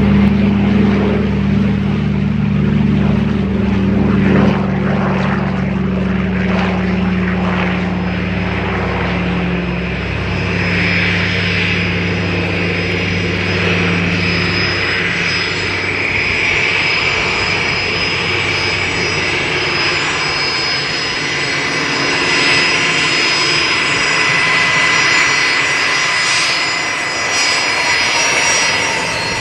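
Douglas DC-3's twin radial engines at takeoff power, a deep, steady propeller drone that fades out about halfway through as the plane climbs away. A jet engine's high, steady whine comes up in its place from a taxiing Gulfstream business jet.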